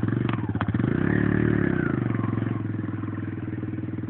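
Small dirt bike engine revving up briefly about a second in and dropping back, then running steadily at low revs. Two sharp clicks come just before the rev.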